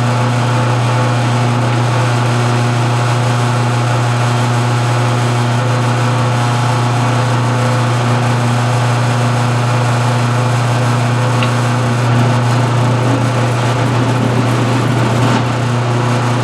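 Lathe motor running steadily, spinning a mandrel carrying three cloth buffing wheels, a constant low hum. About twelve seconds in it turns a little louder and rougher for a few seconds.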